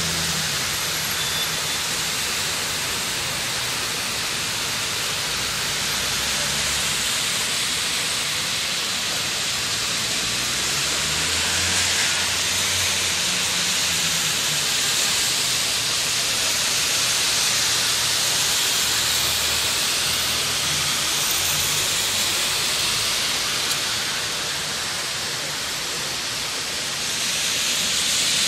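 Steady hiss of rain falling on a street, with cars driving past on the wet road; the hiss swells near the end.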